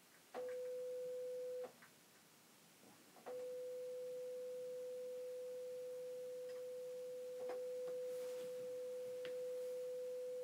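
A 500 Hz sine-wave test tone from an Amiga's audio output, played through desktop speakers. It sounds briefly, stops, then starts again about three seconds in and holds steady. A few light clicks of keys come as it is switched on and off.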